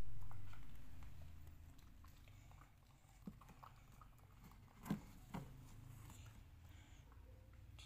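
Soft sucking and handling sounds of a toddler and a baby monkey drinking through straws from small cardboard yogurt-drink boxes, with scattered small clicks and two short louder pops about five seconds in. A louder sound dies away over the first two seconds.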